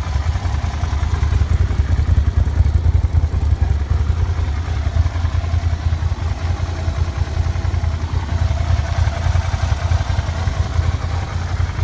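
2009 Suzuki SV650S 645 cc V-twin idling steadily through its stock muffler, which is very quiet. It sounds healthy: a low, even idle with no misses.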